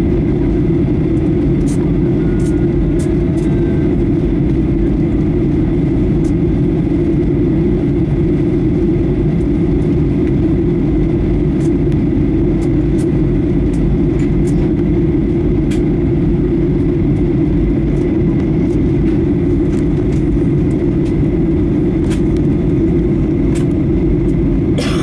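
Steady cabin noise inside a Boeing 737-800 airliner in descent: an even low roar of the jet engines and airflow, with a faint steady whine above it.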